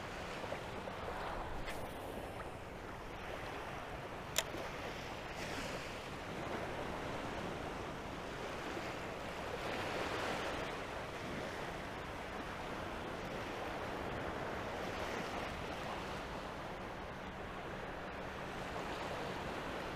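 Small surf waves washing in at the water's edge, a steady wash that swells and eases. A single sharp click stands out about four seconds in.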